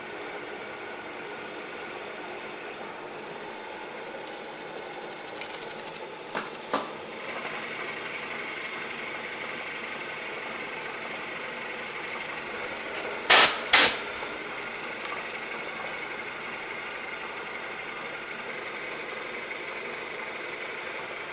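Bridgeport milling machine running under power feed as a half-inch two-flute end mill cuts a keyway in a steel shaft: a steady machine hum with a high, fluttering squeal from the cut about four to six seconds in. Two sharp, loud clacks come about thirteen seconds in.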